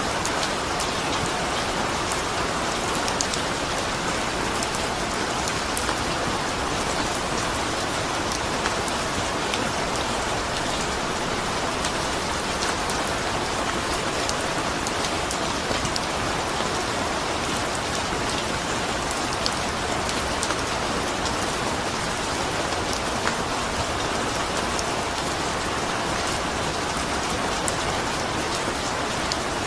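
Steady rain falling, a dense even hiss with scattered sharper drop ticks.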